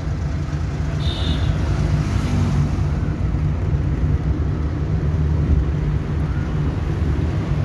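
Steady in-cabin engine and road rumble from a Suzuki car cruising in fourth gear.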